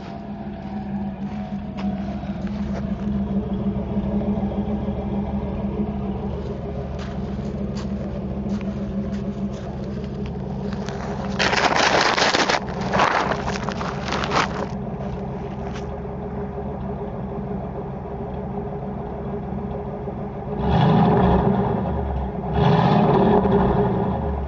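1977 Pontiac Trans Am's Oldsmobile 403 V8, with stock exhaust manifolds, no catalytic converter and a Cherry Bomb Vortex 8111 muffler, idling steadily. Several short revs come around the middle and two longer ones near the end, each settling back to idle.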